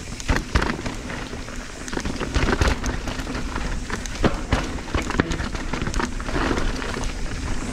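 Mountain bike riding down a loose dirt trail: tyres crunching and skidding over dirt and rocks, with frequent sharp knocks and rattles as the bike hits bumps.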